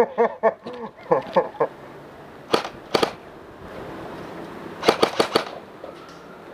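Airsoft guns firing in a skirmish: a quick string of shots in the first second and a half, two single shots about half a second apart around two and a half seconds in, then a rapid burst of about five shots near the five-second mark.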